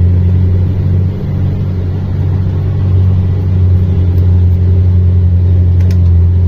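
Mercedes-Benz Axor 2644 truck's straight-six diesel engine running steadily under a load of granite, a low drone heard from inside the cab. It eases off slightly about a second in, then builds back up.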